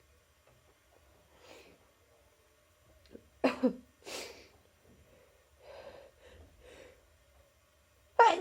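A person with a cold sneezing: one sharp sneeze about three and a half seconds in, followed by a breath and a few faint sniffs. Another sneeze starts near the end.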